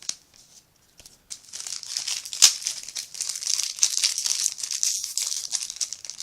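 Foil wrapper of a Yu-Gi-Oh Battle Pack booster being torn and crinkled by hand. A few light clicks, then a bit over a second in the crinkling starts and runs on, with one sharp tearing snap about two and a half seconds in.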